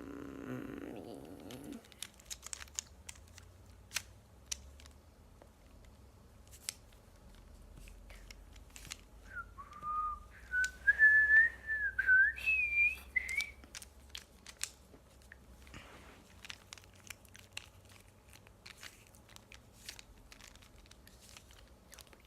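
A person whistling a short wandering tune for a few seconds in the middle, over scattered light plastic clicks of a small puzzle cube being twisted.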